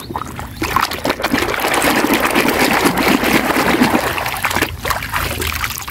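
A hand swishing and scrubbing a muddy plastic toy in a basin of muddy, soapy water: continuous sloshing and splashing that breaks off briefly twice.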